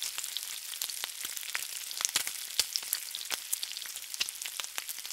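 Food frying in hot oil: a steady sizzle with many irregular pops and crackles.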